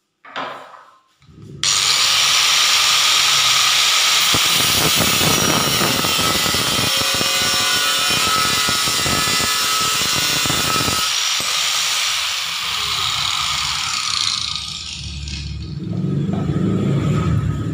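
Enka Slim LY-S1004 4-inch angle grinder starting abruptly about a second and a half in and cutting through 5 mm steel: a loud, steady whine with a dense grinding hiss. About eleven seconds in the cutting noise drops away and the motor whines on alone, then winds down, and a low rumble rises near the end.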